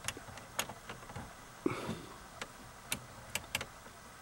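Switches on a newly installed overhead console clicking as they are pressed: a scatter of faint, irregular clicks, with a short rustling bump a little under two seconds in.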